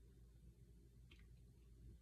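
Near silence over a low room hum, with one faint short click about a second in from a finger joint being cracked.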